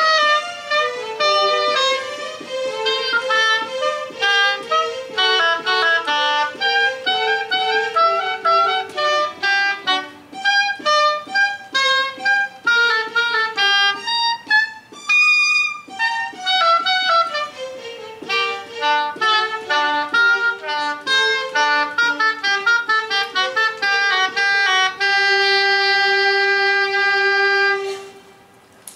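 Oboe and keyboard playing a fast Baroque movement in quick, busy runs, closing on a long held final note that cuts off about a second before the end.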